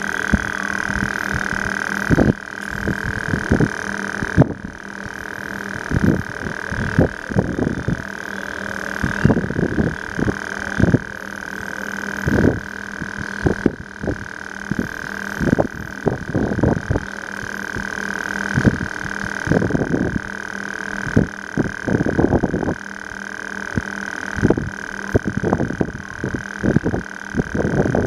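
Handling noise on a handheld compact camera's built-in microphone: irregular dull thumps and rubs from fingers on the camera and lens cap, over a steady high-pitched hum.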